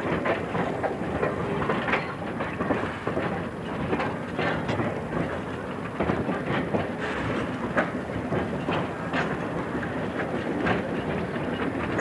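1929 Kerr Stuart industrial locomotive hauling a train: a steady running noise, with sharp clicks at uneven spacing as the wheels pass over rail joints.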